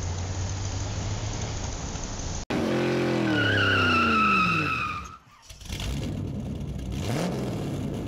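A steady hiss with a low hum, cut off suddenly about two and a half seconds in by a louder car sound effect. An engine note falls in pitch over about two seconds together with a high tyre squeal, and more engine noise follows with a short rise in pitch.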